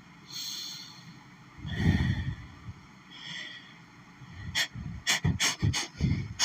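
A woman's hitching, gasping in-breaths as a sneeze builds up, then, from about four and a half seconds in, a rapid run of short, harsh sneezes. This is an allergy sneezing fit.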